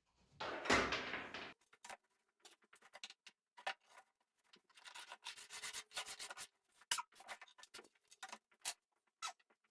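Wood being rubbed or scraped in two short stretches, the first about half a second in and the second around the middle, with scattered light taps and clicks between them.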